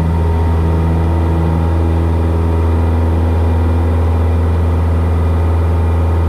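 Cessna 172S Skyhawk's four-cylinder Lycoming engine and propeller at takeoff power during the climb-out, heard from inside the cabin as a steady, loud drone.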